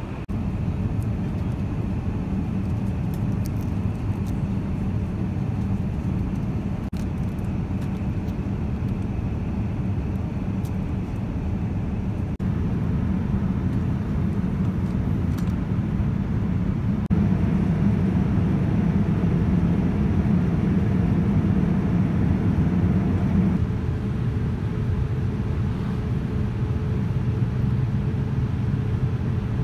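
Steady rushing drone inside a Boeing 787-9 airliner's cabin during the descent to landing: airflow and engine noise. The tone and level shift abruptly a few times.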